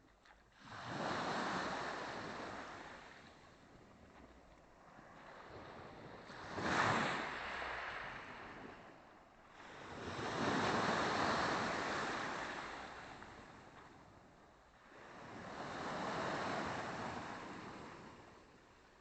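Small Black Sea waves breaking on the shore, four washes about every five seconds, the one about seven seconds in the sharpest.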